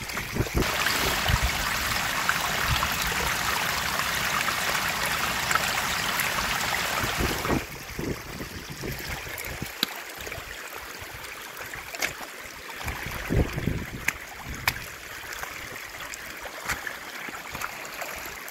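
Rainwater running down a stony woodland path that heavy rain has turned into a small stream. The rushing is louder for the first seven seconds or so, then drops suddenly to a quieter flow, with occasional clicks and thumps.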